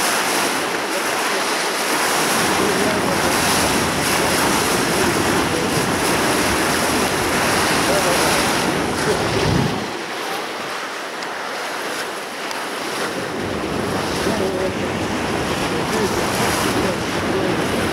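Wind buffeting the microphone over a steady rush of river water, the low rumble of the gusts dropping away for a few seconds about ten seconds in.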